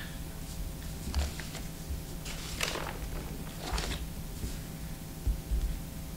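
Quiet meeting-room tone with a steady electrical hum, broken by a few soft rustles and light bumps from people handling papers and devices at the table.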